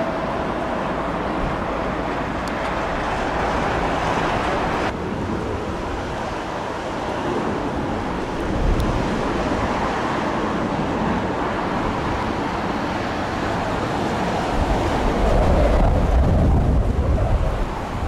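Boeing 787 airliners' jet engines running, a steady rushing noise mixed with strong gusty wind on the microphone. The sound changes abruptly about five seconds in, and heavier low wind rumble builds over the last few seconds.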